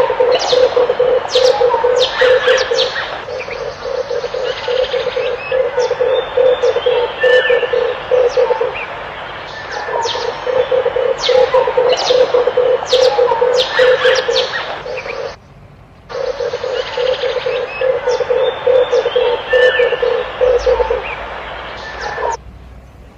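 Red turtle doves calling: about four phrases of a rapid, pulsing low coo, each a few seconds long, with other small birds chirping over them. The sound drops away briefly near the end.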